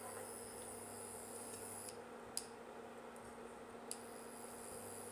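Faint steady hum with two light ticks about a second and a half apart: a plastic spatula knocking against a nonstick frying pan while spreading ghee.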